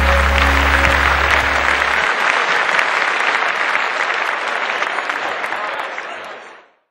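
Audience applauding, with a held chord of background music underneath that ends about two seconds in. The applause fades out quickly just before the end.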